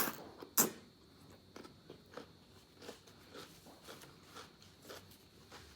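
Biting into raw cucumber close to the microphone: two sharp, crunchy bites in the first second, then steady crunchy chewing about twice a second.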